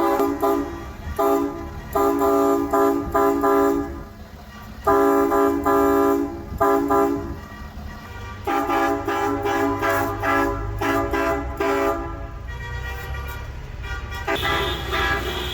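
Convoy vehicles honking their horns over the rumble of engines in a rapid string of short blasts, with a few longer blasts. There is a brief pause about four seconds in, and a higher-pitched horn joins near the end.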